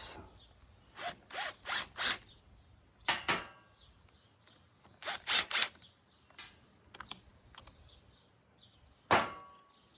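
A socket tool backing off the nuts on a Stihl FS 45 trimmer, in short mechanical bursts: four quick ones about a second in, then more near three, five and nine seconds.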